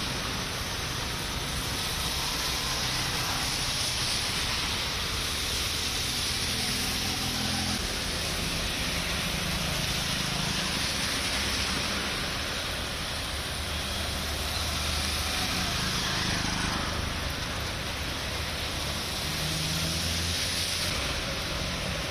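Steady hiss of heavy rain and water with the low rumble of vehicle engines passing through a flooded road.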